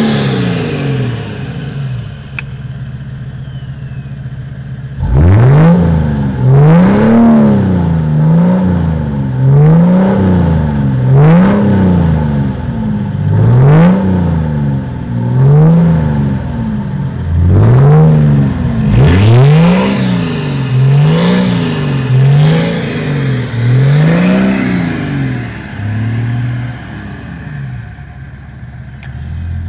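Diesel car engine revved in quick, repeated blips, the pitch rising and falling about once a second, then dropping back to a steady idle near the end. Recorded through a mobile phone's microphone.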